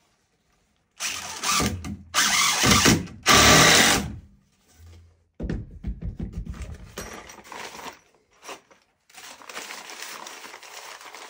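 Cordless drill run in three loud bursts of about a second each, working on the wooden stud-wall framing. Quieter handling noises follow, with a soft rustling near the end.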